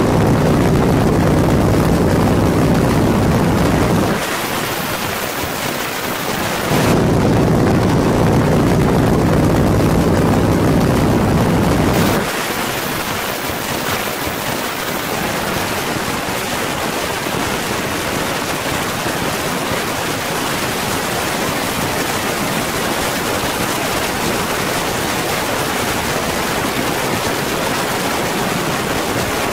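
Open-cockpit Boeing PT-17 Stearman biplane's radial engine running loud and steady over a rush of wind. The engine's low beat drops out abruptly about four seconds in, returns about three seconds later, and drops out again about twelve seconds in, leaving mostly a steady rush of wind.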